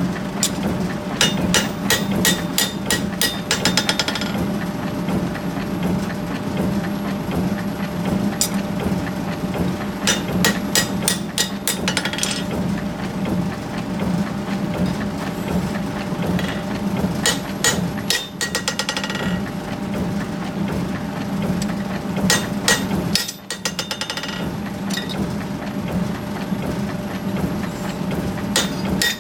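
Hammer blows forging a hot steel axe head, in about four bursts of rapid strikes, each burst ringing briefly afterwards, over a steady low machinery hum.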